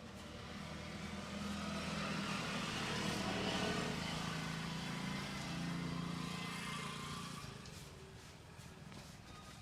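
A motor vehicle passing by on the road: its engine grows louder over the first few seconds, peaks about three and a half seconds in, and fades away by near the end.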